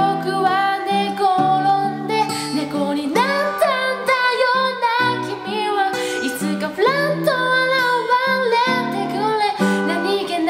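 Strummed acoustic guitar accompanying a voice singing a pop ballad in Japanese.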